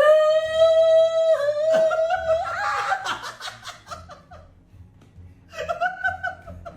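A person's voice: a long, high shriek held for about two seconds that breaks into laughter, then a shorter high cry near the end.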